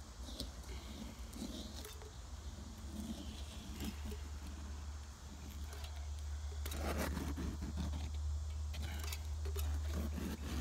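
Hand caulking gun being worked, its trigger and ratchet rod clicking and rattling as adhesive sealant is squeezed out in beads, with a run of denser clicks about seven seconds in and again near the end. A steady low rumble lies underneath.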